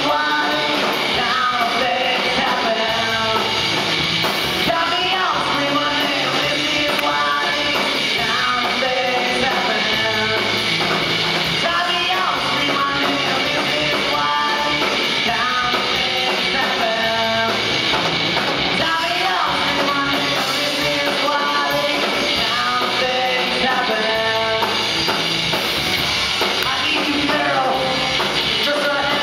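Live rock band playing: drum kit and electric guitars going at a steady, loud level throughout.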